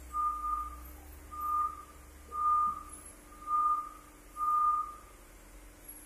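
Electronic warning beeper sounding a single high-pitched steady tone in half-second beeps about once a second, five times, then stopping. A faint low machinery hum runs underneath.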